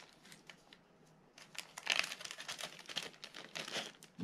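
Small clear zip-lock plastic parts bag crinkling and rustling as it is handled and a small replacement screw is taken out, starting about a second and a half in.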